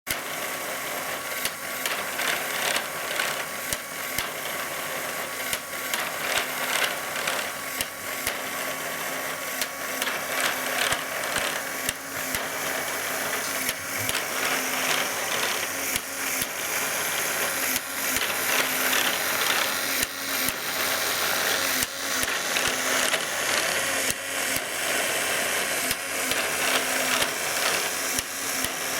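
Lego Technic automatic transmission running under an electric motor: plastic gears whirring with continuous fast clicking and rattling, over a faint steady motor whine.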